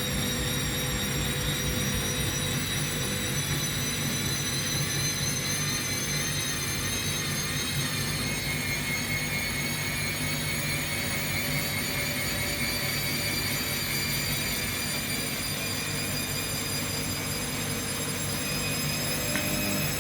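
Bosch and Hoover washing machines in their final spin, the motor whine climbing slowly in pitch as the drums speed up, with another whine tone joining about eight seconds in.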